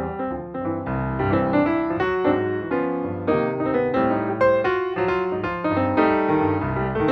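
Background music: a busy piano piece with a moving bass line and many quick notes.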